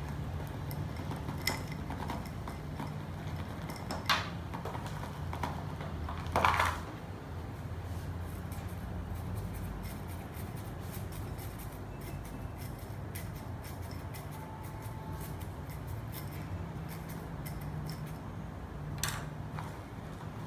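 Hand repotting into a ceramic pot: a few scattered knocks and scrapes as potting soil is poured from a cut plastic-bottle scoop and poked in with a wooden stick, over a steady low hum.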